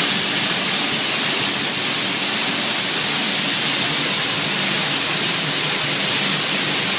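Compressed-air spray guns on an automatic spray-painting line hissing steadily as they atomize paint over rotating parts, with a faint low hum under the hiss.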